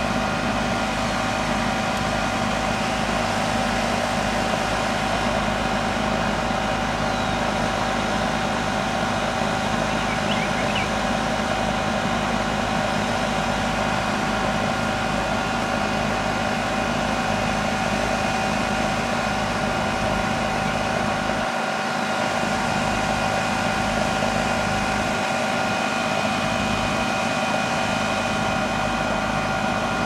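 Goodman air-conditioning condensing unit running steadily: the compressor and outdoor fan make a constant drone with a few steady tones in it. The unit is running while its refrigerant charge is checked by superheat and subcooling, a system that turned out to be low on refrigerant.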